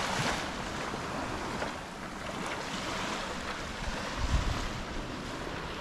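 Small waves washing on the beach at a rising tide, with wind on the microphone and a brief low buffet about four seconds in.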